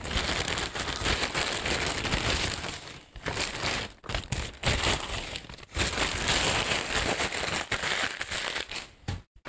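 Plastic courier mailer bag crinkling and rustling as it is torn open and a plastic-wrapped package is pulled out of it, with a few short pauses in the handling.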